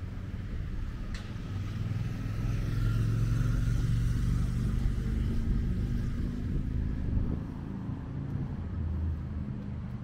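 Road traffic on the street beside the path: a vehicle passes, its engine and tyre rumble swelling about two seconds in, with a faint rising-then-falling whine, and fading after about seven seconds.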